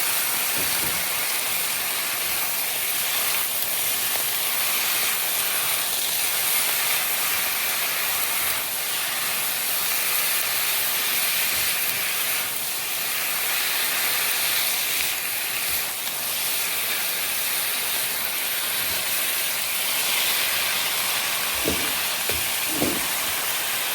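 Food frying in hot oil: a steady sizzle, with a few light knocks near the end.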